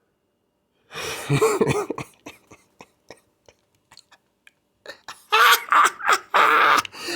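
A man coughing and clearing his throat in two bouts: a short one about a second in and a longer, louder one from about five seconds in.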